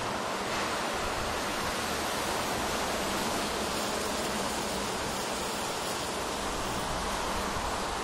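Steady, even rush of city traffic noise mixed with wind, with no single vehicle or event standing out.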